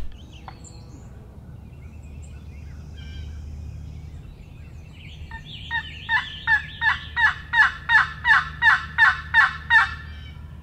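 A series of about a dozen turkey yelps at about three a second, each note breaking downward in pitch, starting about five seconds in and growing louder.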